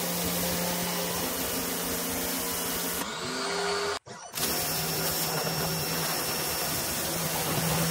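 Pressure washer running, its motor and pump humming steadily under the hiss of the water jet hitting the tractor. The sound cuts out sharply for a moment about four seconds in, then carries on.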